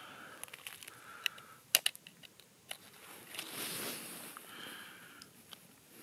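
Small clicks and soft rustling of gear being handled close to the microphone, with one sharper click a little under two seconds in.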